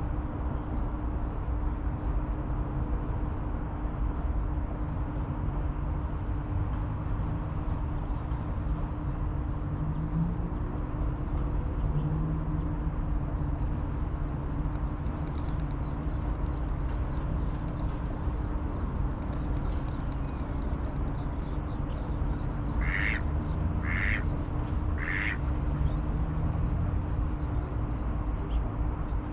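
Steady low outdoor rumble with a constant faint hum, as of flowing water and distant traffic. Near the end come three short bird calls, about a second apart.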